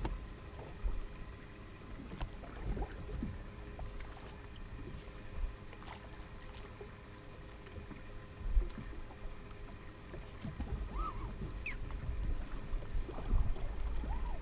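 Small waves lapping and slapping against a bass boat's hull, with low thumps that grow toward the end and a faint steady hum underneath.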